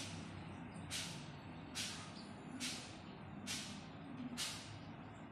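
Electronic stopwatch circuit giving a short hissing tick at a steady pace, a little more than once a second, over a low steady hum.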